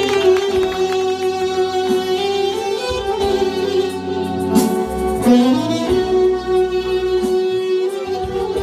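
Live manele band playing an instrumental passage: a held lead melody over changing bass notes and accompaniment.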